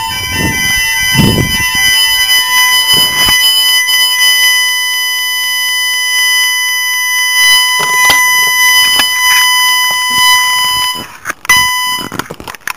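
Fire alarm sounder going off, loud: a rapidly alternating tone that changes about a second in to one continuous steady tone. The tone cuts off about eleven seconds in, with a short burst just after. A few low knocks come in the first few seconds.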